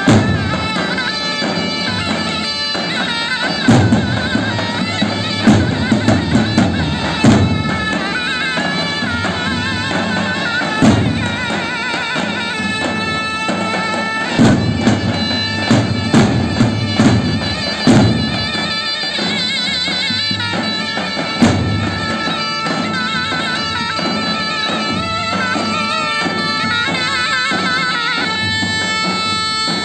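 Zurna playing a loud, ornamented folk melody with wavering held notes, over several davul drums struck in clusters of heavy beats, loudest a few seconds in and again about halfway through.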